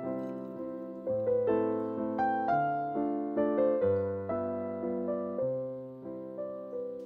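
Background piano music: single notes and chords, each struck and fading, over a bass note every couple of seconds.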